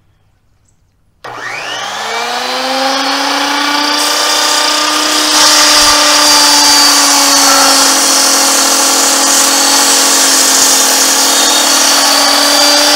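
SKILSAW Sawsquatch 16-5/16" worm-drive circular saw starting up about a second in, its motor whine rising quickly to speed, then running steadily as the blade cuts through a thick timber post.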